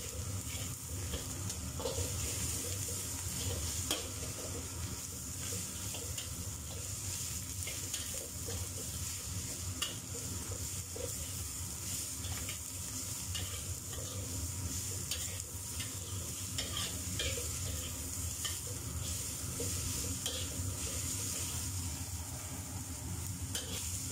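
Shredded cabbage, carrot and celery stir-frying in a wok, sizzling steadily while a spatula scrapes and clicks against the pan now and then; the vegetables are being fried until they wilt.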